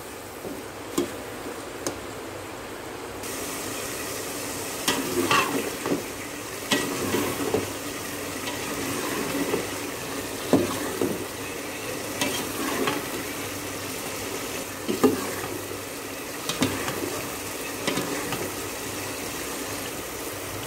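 Chopped tomatoes and onions sizzling in oil in a steel pot while a spoon stirs them, knocking and scraping against the pot every second or two. The tomatoes are being cooked down in the oil as a curry base.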